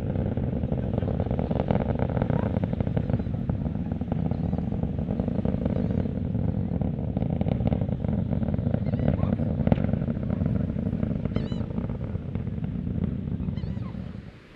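Deep, steady rumble of SpaceX Starship SN11's three Raptor rocket engines at launch, with a crackling texture, heard through thick fog. It cuts off suddenly near the end.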